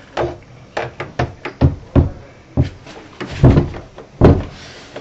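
An interior door being knocked and banged: a dozen or so sharp, irregular knocks and thumps, the heaviest about three and a half and four and a quarter seconds in.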